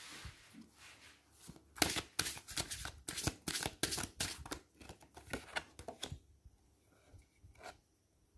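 A tarot deck being shuffled by hand: a soft slide of cards at the start, then a dense run of quick card-on-card clicks from about two seconds in to about six seconds in.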